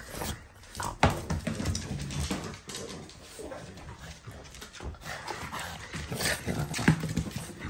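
French bulldog puppies snorting in play, a pig-like sound, with a few sharp knocks, the loudest about a second in.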